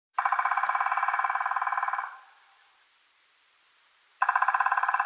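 A bird giving a rapid rattling trill about two seconds long, then starting the same trill again about four seconds in.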